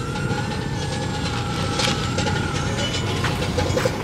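Handmade 1/8-scale RC excavator's motors whining steadily as it swings its upper structure and boom, the pitch shifting slightly a few times, with a few light clicks near the end.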